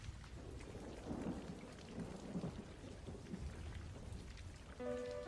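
Faint rain falling with a low rumble of thunder, a storm ambience. Music with held notes comes in near the end.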